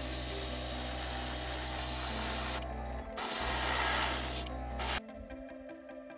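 Airbrush spraying paint in long bursts: a loud, even hiss over a low hum, broken off briefly twice and cut off about five seconds in, leaving background music.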